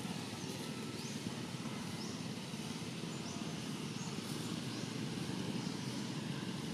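Outdoor ambience: a steady low rumble like distant engine or traffic noise, with faint high rising chirps repeating about once a second.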